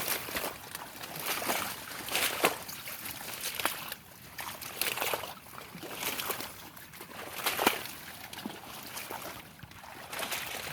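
Irregular splashing and sloshing of river water, with a few sharper, louder splashes.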